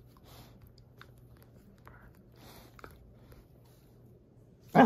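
Dog gnawing and mouthing a cotton rope toy: soft, scattered chewing and clicking sounds. Near the end comes a sudden short loud sound.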